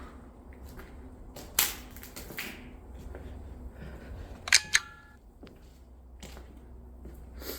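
Phone notification chime: a short run of clear electronic tones about halfway through. Scattered sharp clicks and knocks come before and after it.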